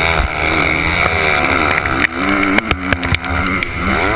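Motocross dirt bike engine being ridden hard, its pitch rising and falling again and again as the throttle is worked, with a cluster of sharp knocks and clatter about halfway through.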